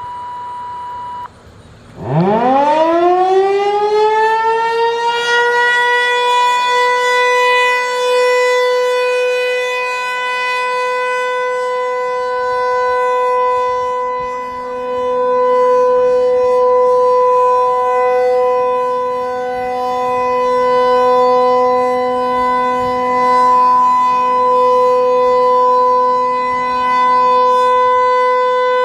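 Federal Signal 508-128 single-tone chopper siren sounding Alert for a test. A steady tone cuts off about a second in. The siren then winds up with a rising whine over a few seconds and holds one steady, very loud tone.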